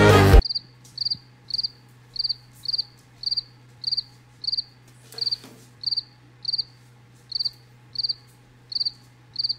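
Cricket chirping: short high chirps, each a quick trill of a few pulses, repeating evenly just under twice a second over a faint steady low hum.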